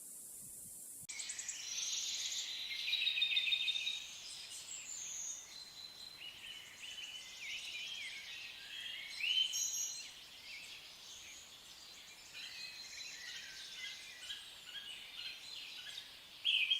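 Several birds singing at once, many overlapping chirps, warbles and trills, starting suddenly about a second in.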